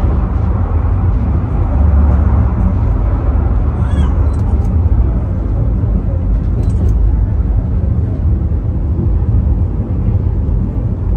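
Penang Hill funicular car running on its rails, a steady low rumble heard from inside the cabin.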